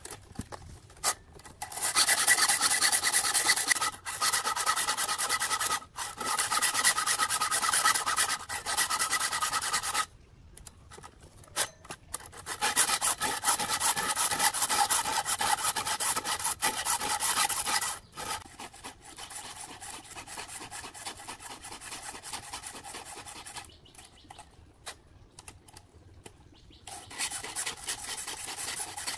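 A round file rasping across the steel cutter teeth of a chainsaw chain, sharpening it in runs of repeated strokes. The filing stops for a couple of seconds about a third of the way in and again near the end, and the strokes in the later part are quieter.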